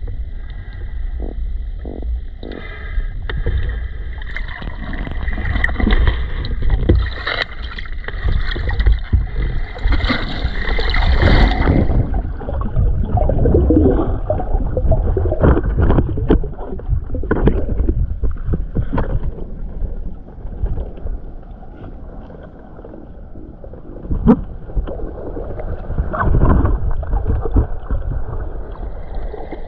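River water churning and bubbling as heard by a camera at or under the surface below a waterfall, with frequent knocks and bumps against the camera. About twelve seconds in the sound turns duller and more muffled.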